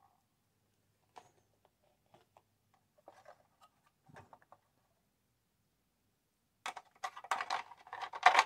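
Plastic toy parts clicking and scraping under handling. A few faint clicks come first, then a short quiet, then about seven seconds in a dense, louder run of clicks and scrapes as a 4-inch action figure is pushed into the plastic mech's cockpit.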